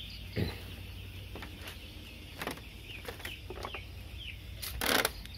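Young broiler chicks peeping with a few short falling chirps over a steady low hum, with scattered light clicks and a brief rustling noise near the end.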